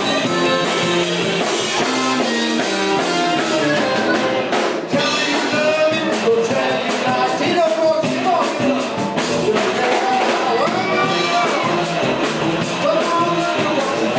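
Live blues-rock band playing: electric guitars and drums, with a man singing lead at the microphone.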